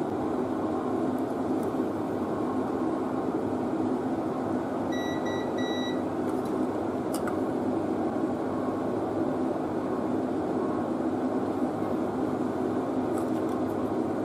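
Digital multimeter in continuity (buzzer) mode beeping twice in quick succession about five seconds in, the sign that its probes have found a connection between a chip pin and a solder joint. Under it sits a steady background rumble, with a sharp click a couple of seconds after the beeps.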